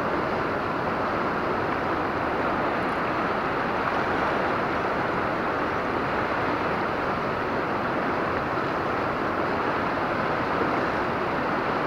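Steady rushing of a fast-flowing river current.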